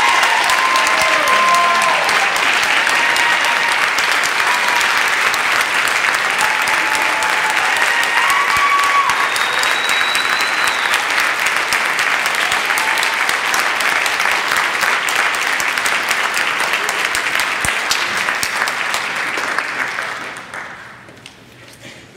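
Large audience applauding, a dense patter of many hands clapping that fades away near the end.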